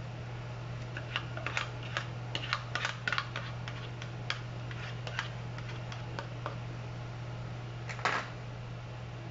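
Light clicks and taps of a spoon against a pan and thin plastic food tubs while the pudding is portioned out, a quick irregular run for the first few seconds. About eight seconds in comes a louder clatter as a plastic tub is handled, over a steady low hum.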